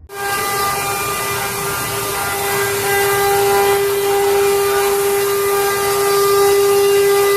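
CNC router spindle carving wood: a steady high whine with a dense cutting hiss, starting abruptly and holding even throughout.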